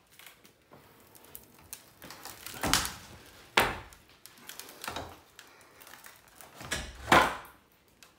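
Wooden door-frame studs (the jack and king studs) being knocked and pried off the header: four loud wooden knocks and scrapes in the second half, the last one the loudest.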